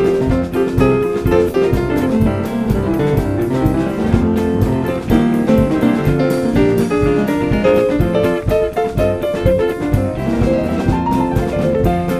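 Lively jazz-style music with a drum kit keeping a steady beat under piano and other instruments.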